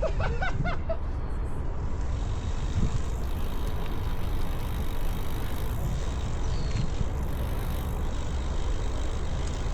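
Steady rumbling wind and rolling noise of riding a bicycle, with wind buffeting the microphone.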